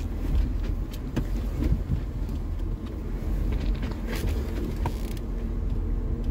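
Jeep Wrangler engine running at low revs as it backs off a rock obstacle, with a few short knocks from the tyres and suspension over the rocks.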